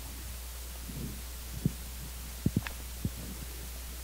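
Quiet room tone with a steady low hum, broken by a few soft, low thumps around the middle, two of them close together about two and a half seconds in, and a faint click just after.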